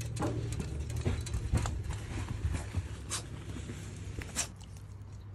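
A French bulldog's paws and claws tapping and clicking on metal stair treads and then on paving as it goes down steps, with a person's footsteps behind: irregular clicks and taps over a low rumble, with two sharper knocks near the end.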